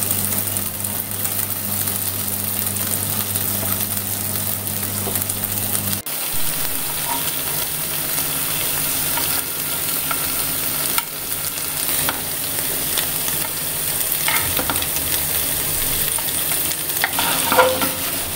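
Paneer slabs and diced bell peppers sizzling steadily as they fry in a little oil in a nonstick frying pan, with a spatula clicking and scraping against the pan as it turns the paneer.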